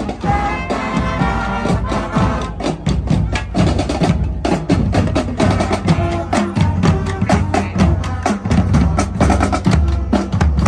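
Music with a quick, even percussion beat of sharp wood-block-like strikes under sustained pitched melody.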